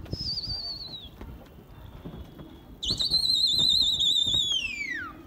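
Two loud, warbling whistles. The first is short and slides downward. The second, about three seconds in, holds its pitch and then falls away steeply. It is a pigeon flyer whistling to his circling flock.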